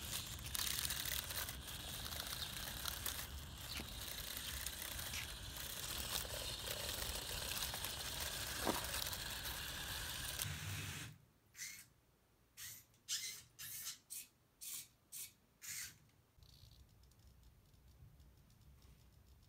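Small tracked robot chassis driving over gravel and concrete paving stones: its gear motors and tracks run with a dense crunching, crackling noise that stops abruptly about eleven seconds in. About eight short bursts of noise follow over the next five seconds, then faint room tone.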